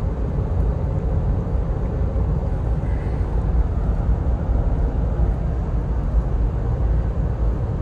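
A Toyota Fortuner driving: a steady low rumble of road and wind noise, with nothing rising or falling.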